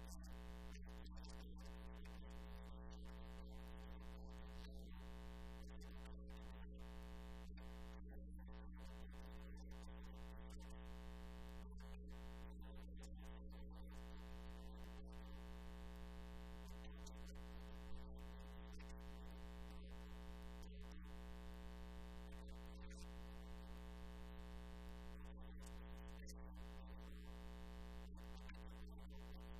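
A faint, steady electronic hum with a stack of even overtones that never changes in pitch or level, with one brief small blip about two-thirds of the way through.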